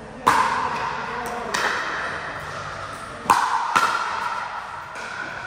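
Pickleball paddles hitting the hard plastic ball during a rally: four sharp pops, each echoing briefly in a large indoor hall.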